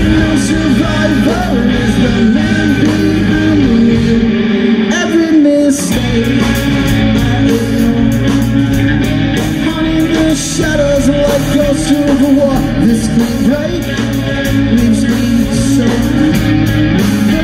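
Live rock band playing: electric guitars, bass guitar and drum kit with a man singing. The bass and kick drum drop out briefly about four seconds in, then come back.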